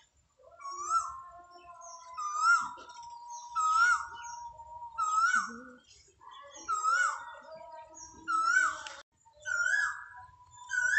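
An animal calling over and over, one short rising-and-falling cry about every second and a half, over a thin steady high tone.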